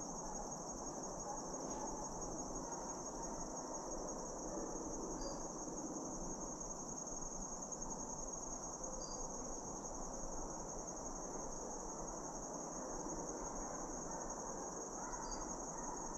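Steady high-pitched chorus of insects, with a faint short chirp every few seconds.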